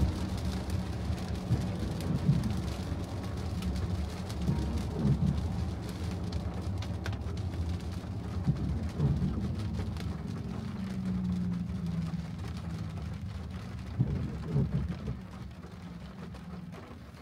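Cabin noise of an electric car (Audi Q4 e-tron) driving on a rain-soaked road: a steady low rumble of tyres and water spray with rain on the car, swelling now and then and falling away near the end.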